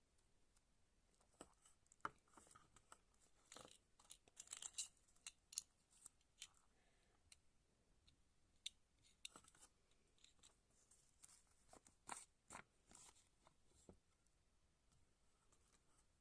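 Faint, scattered clicks, scratches and rustles, like small objects and paper being handled, in clusters about 4 to 5 seconds in and again around 12 seconds.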